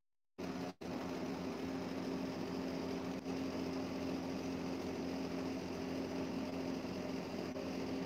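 Steady machine hum: a low drone over an even hiss. It cuts out completely for about half a second at the start, and again for an instant just after.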